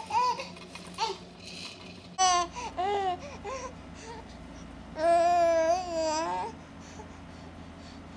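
A baby cooing and babbling in short, high-pitched vocal sounds that waver in pitch, the longest a drawn-out coo of about a second and a half about five seconds in.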